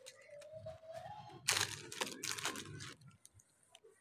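Clear plastic clothing bags crinkling and rustling as they are handled, loudest about a second and a half in and dying away near the end.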